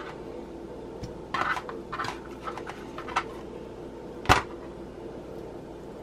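Scattered taps and knocks from a kitchen knife and raw chicken tenders being handled on a plastic cutting board, the sharpest knock about four seconds in, over a steady low hum.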